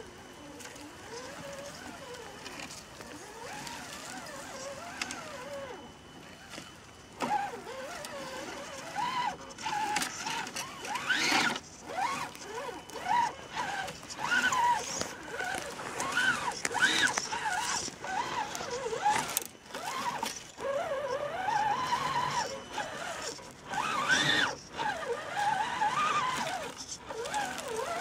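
Small electric motors and gear drives of radio-controlled scale crawlers whining, the pitch rising and falling as the throttle is worked, louder from about seven seconds in. Scattered crackles and rustles of dry leaves and twigs under the tyres.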